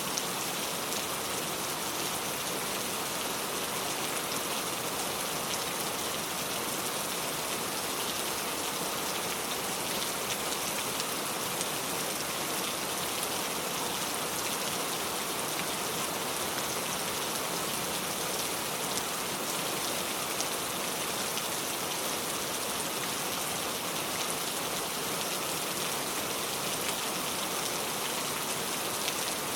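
Steady rain falling, a dense even patter of drops on a surface with no change in intensity.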